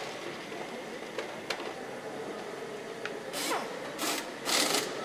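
Assembly-line machinery humming steadily, with a few light clicks. In the second half come three short hisses of compressed air from pneumatic hand tools, the last one the loudest.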